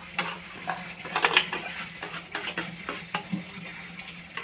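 A metal spoon stirring rice in a large metal pan over a wood fire, with irregular scrapes and clinks against the pan over a light sizzle from the hot liquid.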